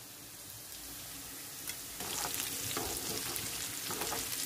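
Hot oil sizzling in frying pans: a steady, light sizzle of garlic and panch phoron frying for a dal tarka, then about two seconds in a louder crackling sizzle as potato chunks fry in oil and are stirred with a spoon.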